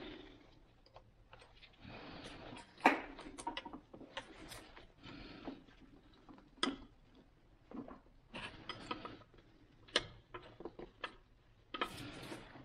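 Metal clicking, clinking and scraping from hands and tools working a trim/tilt hydraulic hose fitting into a Volvo Penta SX Cobra sterndrive's gimbal housing. Irregular clicks, three sharper ones about 3, 7 and 10 seconds in, between stretches of rubbing.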